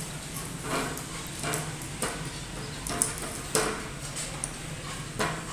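Plastic rope being pulled through the strung strands of a metal-framed charpai: a string of short swishes and light knocks, roughly one a second, over a steady low hum.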